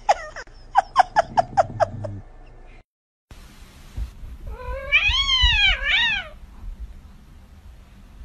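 Cat vocalising: a quick run of about seven short, high cries, then two long, loud meows that rise and fall in pitch.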